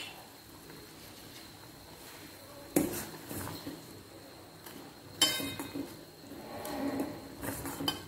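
A spoon clinks against a stainless steel pot while stirring noodles in boiling water. There are two sharp clinks a few seconds apart, then a run of lighter knocks and scrapes near the end.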